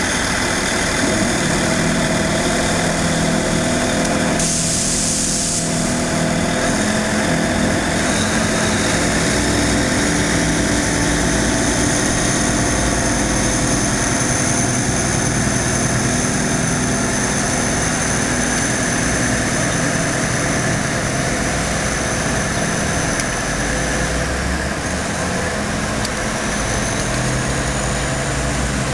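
CAF diesel-hydraulic multiple unit's diesel engine running steadily as the train pulls out of the station, with a brief hiss about four to five seconds in.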